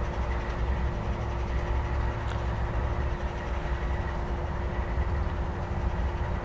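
Diesel locomotive idling in a rail yard: a steady low rumble with a constant hum, the horn not yet sounding.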